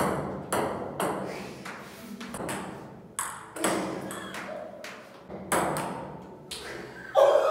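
A series of sharp knocks at uneven intervals, each ringing out briefly, several in all.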